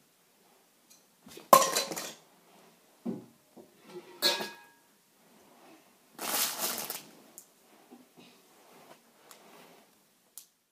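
Plastic Lego pieces clattering against each other in short bursts, three louder clatters spread across a few seconds with small clicks between them.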